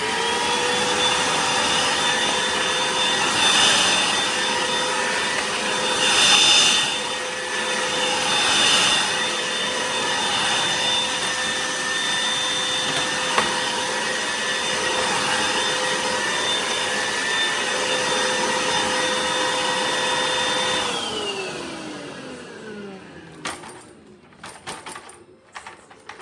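Cordless stick vacuum (Rowenta XPert 6.60) motor spinning up, then running steadily with a whine over rushing air that swells briefly a few times. Near the end the pitch falls as the motor winds down and stops, and a few clicks follow.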